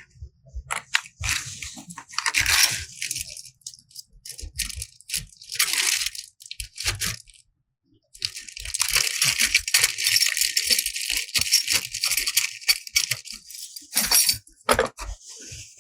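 Crinkling packaging and rattling parts as a new RV keyless door lock is unboxed and handled: irregular short bursts, then about six seconds of steady crinkling from roughly halfway through.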